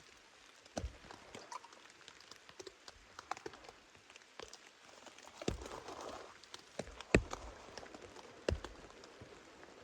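Raindrops striking a tent's fabric from inside the shelter: irregular scattered ticks over a faint hiss, with a few louder knocks among them.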